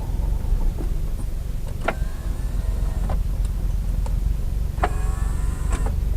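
Abnormal noise from a car's left rear over a steady low road rumble heard inside the cabin. Twice, about 2 s and about 5 s in, a sharp click is followed by a squeaky creak lasting about a second, with fainter clicks in between.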